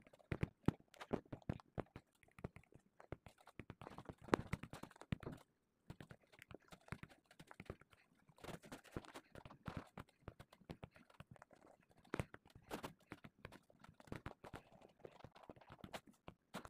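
Rapid, irregular soft taps and clicks of fingers working a phone touchscreen while brushing over a photo in an editing app, with a brief pause in the middle.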